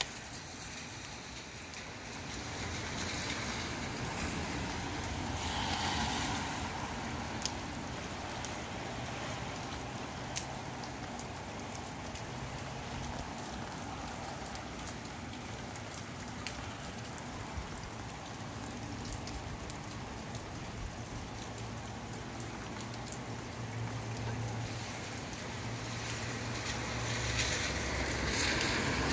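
Steady rain falling, with a few sharp drip ticks; the hiss swells about six seconds in and again near the end.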